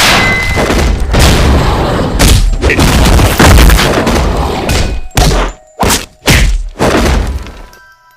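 Fight sound effects: a dense run of heavy thuds and booms, then about four separate impacts a little over half a second apart, dying away near the end.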